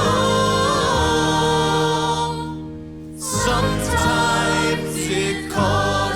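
Vocal group singing a slow hymn: a held chord that fades out about two and a half seconds in, then a new sung phrase begins.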